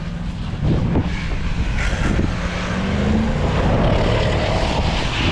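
A vehicle's engine is floored with the steering at full lock, spinning a donut in deep snow. The revs jump up about a second in, keep climbing, then hold high, with a steady rush of spinning tyres and snow underneath.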